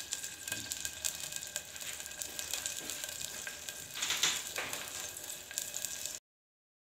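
Sliced onions sizzling gently in oil in a clay matka pot over a low gas flame: a steady crackling hiss, with a louder spell of crackles about four seconds in. The sound cuts off suddenly near the end.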